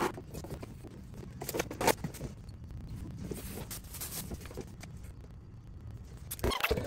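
Plastic bag crinkling and rustling as it is handled, with scattered light clicks and knocks. The clicks are denser and louder near the end.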